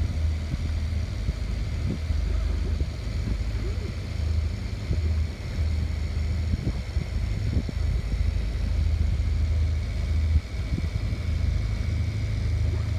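Motor boat's engine running steadily under way, a constant low drone.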